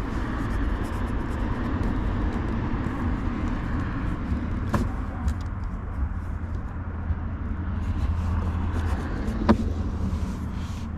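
Steady low vehicle rumble, with two sharp clicks about five and nine and a half seconds in.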